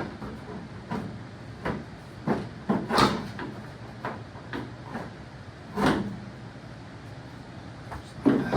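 Irregular knocks and clanks of hand tools and metal parts being handled during tractor work, about a dozen in all, the loudest around three and six seconds in and again near the end.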